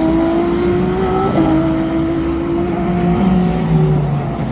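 Endurance race car engines running hard on track, the pitch slowly climbing with a gear change about a second and a half in. A second, lower engine note falls away near the end.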